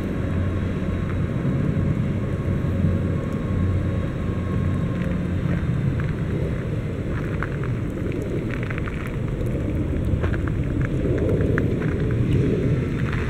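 Steady low drone of a motor vehicle with road noise, with scattered light clicks and taps in the second half.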